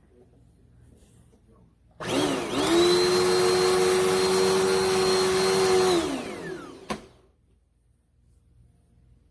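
Dirt Devil Endura Lite bagless upright vacuum switched on: its motor spins up with a rising whine and runs steadily for about four seconds, then is switched off and winds down with a falling whine. A sharp click comes just after.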